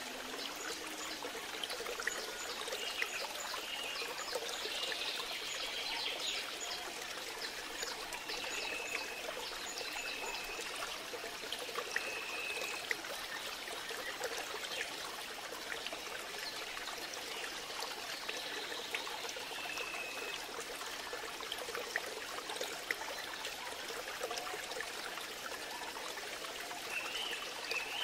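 Steady rushing noise like running water, with small ticks and short high chirps every few seconds.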